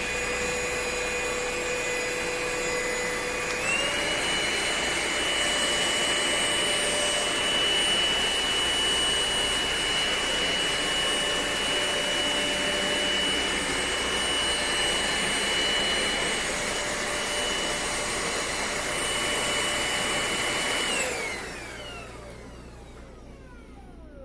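Cordless stick vacuum cleaner running with a steady high whine, stepping up in pitch about four seconds in. Near the end it is switched off and the whine falls away as the motor winds down.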